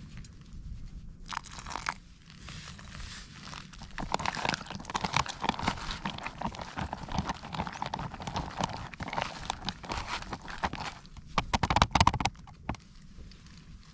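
Hiking boots crunching step after step on a stony fell path, irregular footfalls over a steady low rumble, with a louder run of crunches near the end.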